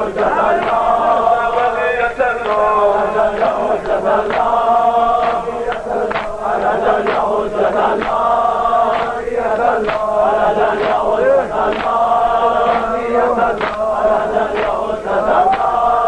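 Men's voices chanting a Persian devotional madahi refrain together, carried over a steady beat of sharp strikes that comes roughly every three-quarters of a second.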